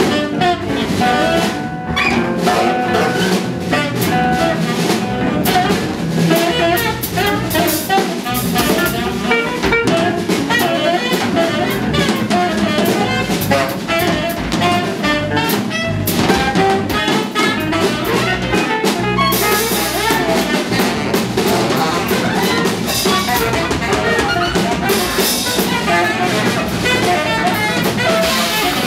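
Live free-jazz quartet playing: saxophone over electric guitar, electric bass and a busy drum kit. The cymbal wash swells twice in the second half.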